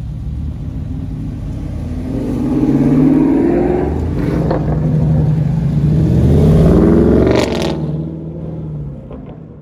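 Dodge Charger Widebody's V8 engine running at idle, then revving as the car pulls away from the curb. It rises in pitch twice, loudest on the second pull, then fades as the car drives off.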